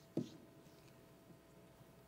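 A single short thump about a fifth of a second in, over a faint steady hum and otherwise quiet room tone.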